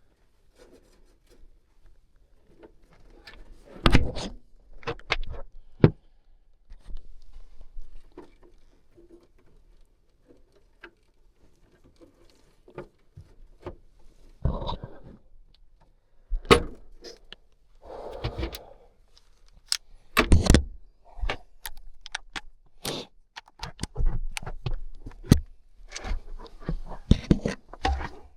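Irregular clicks, knocks and rustles of hands working with tools and electrical wiring, with a few louder knocks scattered among them.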